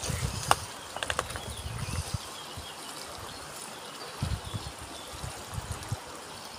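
Outdoor garden ambience: faint short chirps over a steady hiss, with a few sharp clicks in the first second or so and scattered low thumps.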